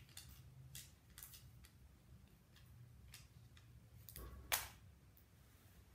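Small paper stickers being peeled off their backing strip: faint, scattered paper crackles and rustles, with a louder crinkle about four and a half seconds in.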